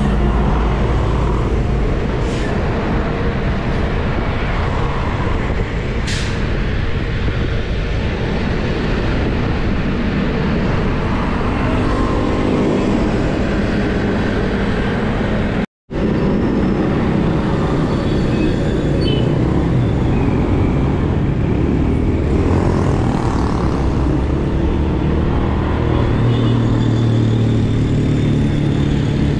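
Steady rushing road and wind noise while riding a bicycle among motor traffic, with the engines of passing vehicles humming underneath. A vehicle's low engine hum swells near the end.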